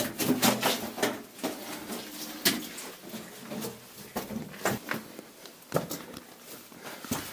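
Irregular scuffs, scrapes and sharp knocks of people moving crouched through a narrow cave passage, with clothing and boots rubbing and knocking on rock.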